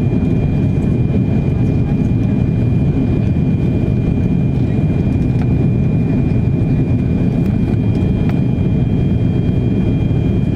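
Steady cabin noise of an Airbus A340-600 on approach with flaps extended, its four Rolls-Royce Trent 500 engines and the airflow heard from inside the cabin: a constant low rumble with a steady high-pitched whine over it.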